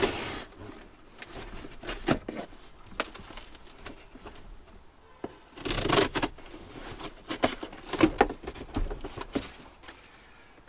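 A parcel being cut open with a knife and its packaging pulled apart: irregular scraping, tearing and crinkling with sharp clicks, loudest about six and eight seconds in.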